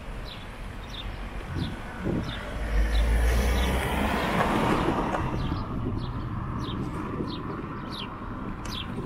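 A car driving past close by: its engine and tyre noise swell to a peak about three seconds in and fade away. A run of short, regular ticks goes on underneath.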